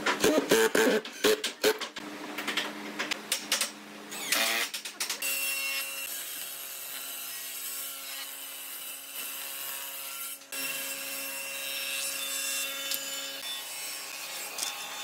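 A cordless drill drives screws into pine in short, irregular bursts. Then a stationary combination woodworking machine runs with a steady motor drone while a pine board is ripped on its saw table.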